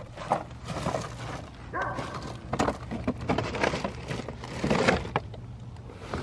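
Irregular knocks, clicks and clatter in a small room, with a steady low hum underneath.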